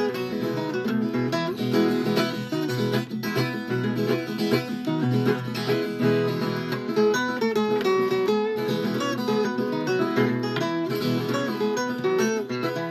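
Viola caipira playing an instrumental interlude: quick plucked melody runs over steady strummed chords.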